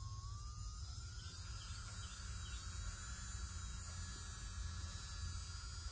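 SML electric nail drill's handpiece motor running quietly with a thin high whine that rises in pitch in the first second as it speeds up, then holds steady.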